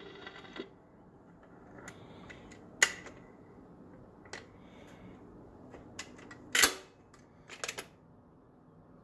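Sharp mechanical clicks and clacks from an RCA record player's tonearm being lifted off the record and set back on its rest, over a faint steady hum. The loudest clack comes about two thirds of the way in, and a quick few more follow near the end.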